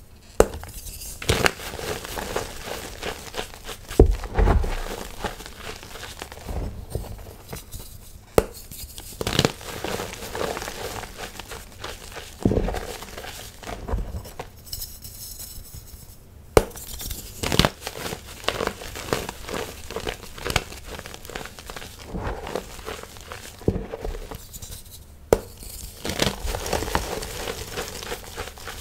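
Blocks of gym chalk crunching and crumbling as hands squeeze and break them in a bed of loose chalk powder. Irregular sharp cracks come as pieces snap, with a dry gritty rustle between them.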